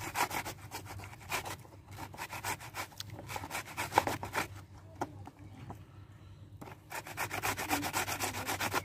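Raw green mango being grated by hand on a flat stainless-steel grater: quick, repeated scraping strokes, several a second, easing off for a couple of seconds past the middle and then picking up again.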